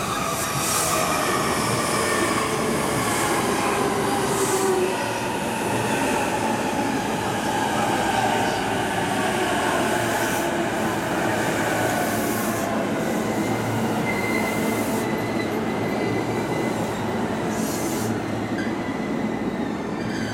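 JR Keihin-Tohoku Line E233-series electric commuter train running past, its motor whine falling in pitch over the first few seconds above steady wheel and rail noise.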